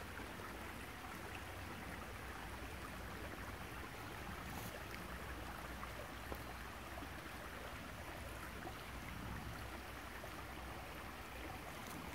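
Shallow creek water flowing steadily over rocks, a soft even rush.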